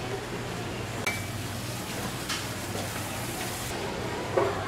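Steady low electrical hum under a hiss of room noise, broken by a sharp click about a second in and a short clatter a little past two seconds.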